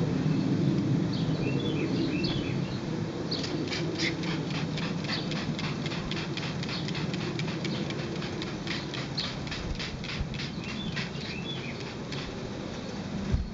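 Trigger spray bottle squirting mildew remover onto a canvas awning in quick repeated short hisses, starting about three seconds in.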